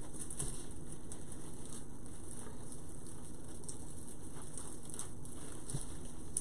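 Light rustling and crackling of artificial pine branches and wired berry stems being twisted together by hand, over a steady background hiss.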